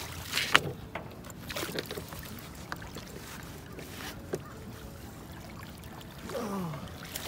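Hooked striped bass thrashing at the water's surface beside the boat, with sharp splashes, the loudest about half a second in, and a few smaller splashes after as it is brought to the net.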